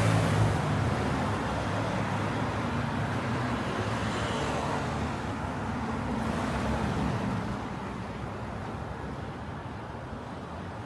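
Light road traffic: cars passing one after another with tyre and engine noise, a vehicle going by at the start, another swelling past midway, then the sound easing off toward the end.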